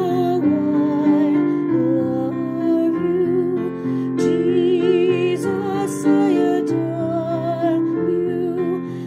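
Voices singing a slow worship song as a round, with vibrato, over sustained chords from a digital keyboard.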